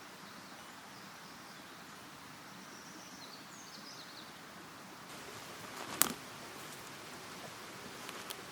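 Quiet outdoor ambience: a steady, even hiss with a few faint bird chirps a few seconds in, and a single sharp click or snap about six seconds in, the loudest sound, with a smaller click near the end.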